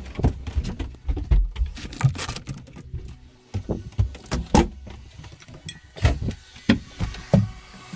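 Irregular knocks, clicks and thumps of hands working the metal porthole latches and of moving about inside a sailboat's cabin.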